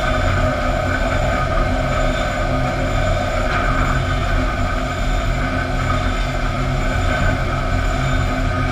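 Steady din of sawmill machinery: chain transfer conveyors and rollers carrying boards, with a constant low motor hum.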